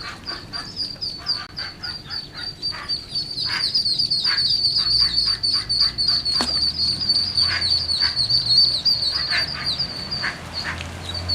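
Ducklings peeping non-stop in rapid, high chirps, several a second, with a few lower calls from the mother duck mixed in. A single sharp click about six seconds in.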